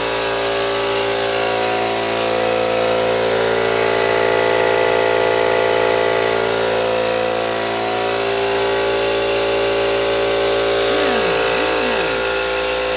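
Homemade double-acting engine running steadily on compressed air at about 30 PSI, a continuous mechanical whir. A couple of short wavering squeaks come about eleven seconds in.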